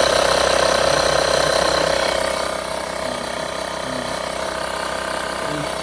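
Small piston air compressor built into a UIBI X5 portable jump starter running in its faster bicycle/motorcycle inflation mode, a steady mechanical chatter with a constant hum. It drops a little in loudness about two and a half seconds in.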